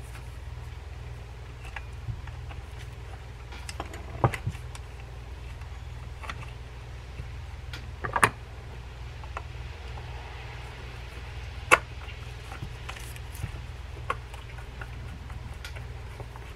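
Scattered small metal clicks and taps as screws and a screwdriver are handled against the metal frame of an Ocean City big-game reel, with the sharpest clicks about 8 and 12 seconds in. A steady low hum runs underneath.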